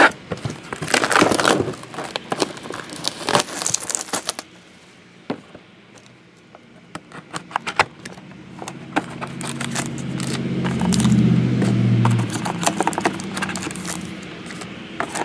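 A trading-card box being opened by hand: the cardboard lid and packaging crackle, rustle and click, followed by plastic card cases being handled. A low rumble builds and fades a few seconds past the middle.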